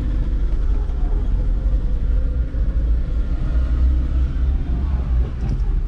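Steady low rumble of a vehicle's engine and tyres while driving along a road.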